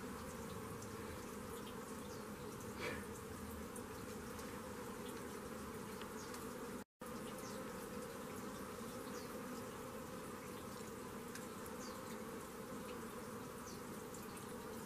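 Steady buzzing drone of flying insects, with one brief louder sound about three seconds in and a short cut to silence about seven seconds in.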